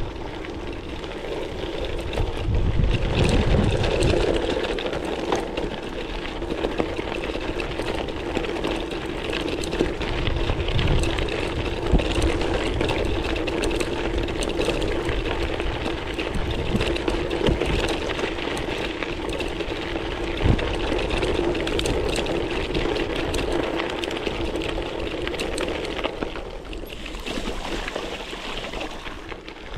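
Gravel bike tyres rolling over a rough, stony track, with small stones crunching and clicking under the wheels and the bike rattling. Wind buffets the GoPro microphone in low gusts.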